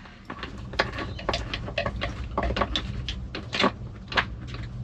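Irregular light metallic clicks and taps as bolts are started by hand into a boat seat's metal mounting plate, over a low steady hum.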